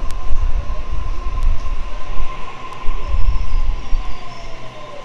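Electric passenger train at a station platform: a steady high electrical whine over a low rumble, with a second whine slowly falling in pitch over the last couple of seconds.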